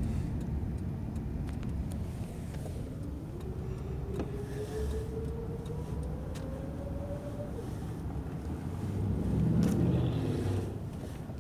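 Car running on the road, heard from inside the cabin: a steady low engine and road rumble with a faint whine that climbs slowly in pitch for a few seconds, and a louder swell of noise about ten seconds in.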